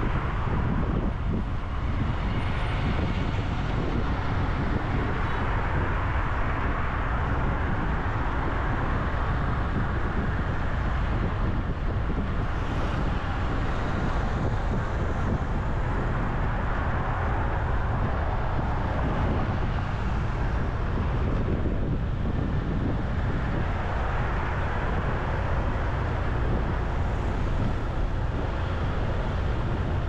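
Steady road and wind rumble from a moving vehicle driving in traffic, with other cars and motorbikes passing.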